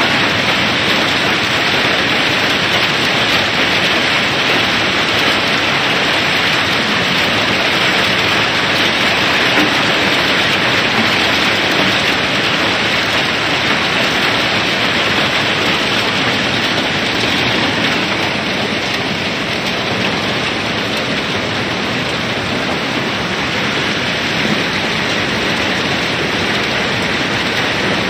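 Dense, steady rattling of river pebbles streaming down the barge's steel hold and pouring through the unloading opening in its floor, easing a little about two-thirds of the way through.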